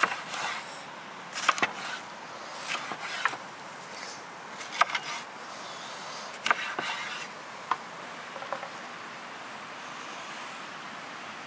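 Kitchen knife slicing through a red bell pepper and striking a wooden cutting board, a sharp crisp chop about once a second, stopping near the end, over a steady background hiss.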